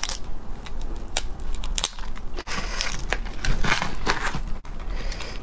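Crisp cracking and crunching of small raw marinated crabs' shells as they are broken apart and eaten: a run of sharp cracks, densest about three to four seconds in.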